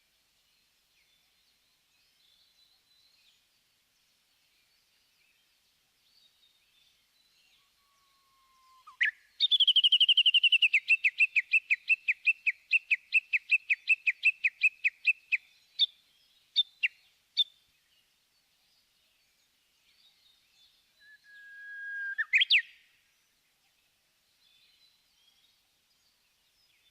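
Japanese bush warbler (uguisu) singing: a held low whistle that breaks into a long, rapid run of repeated notes lasting about six seconds, then a few single notes. Later comes another held whistle ending in a quick rising flourish.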